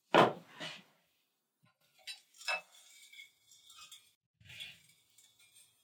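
A bowl set down on a wooden table with a knock, then a few light clicks and clinks of small things being handled.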